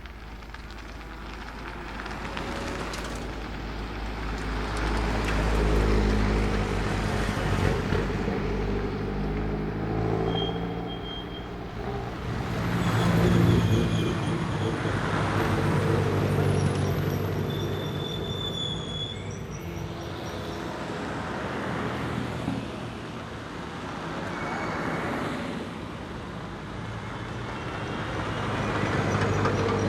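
Peugeot 308 TCR race car's turbocharged 1.6-litre four-cylinder engine revving up through the gears and backing off again and again as it climbs. It grows louder and fades, loudest about 13 seconds in.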